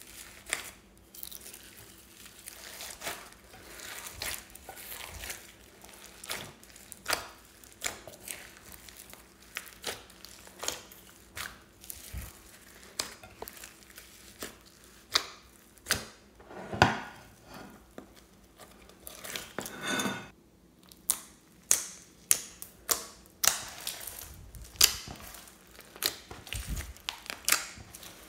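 Hands squeezing and kneading clear slime mixed with beads, glitter and crunchy bits: irregular wet crackles and sharp pops, with the loudest pops in the second half.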